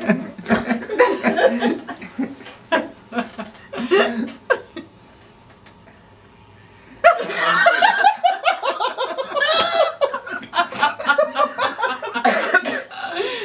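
A group of people laughing hard in uneven bursts. The laughter dies down briefly about five seconds in, then breaks out again loudly about seven seconds in and keeps going.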